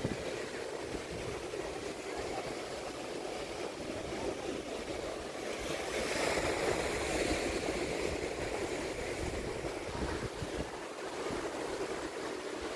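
Ocean surf washing onto a rocky shoreline: a steady rushing of breaking waves that swells louder about six seconds in.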